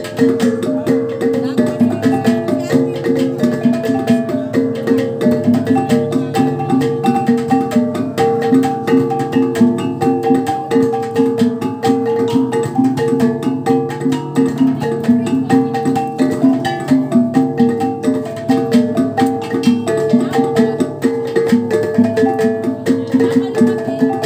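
A kulintang ensemble playing: a row of eight small bossed gongs struck with wooden sticks in a fast, ringing melody, over a pair of large hanging agung gongs and a dabakan goblet drum keeping a steady beat.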